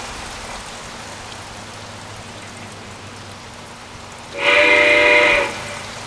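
Lionel Legacy Pennsylvania J1a 2-10-4 model locomotive's onboard sound system blowing its multi-tone steam whistle once, about a second long, a little over four seconds in. Underneath, a steady hiss of running water from a garden pond waterfall.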